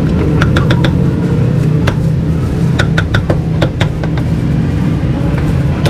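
Steel meat cleaver chopping braised pork offal on a thick wooden chopping block: irregular sharp knocks, a few close together, over a steady low rumble of street noise.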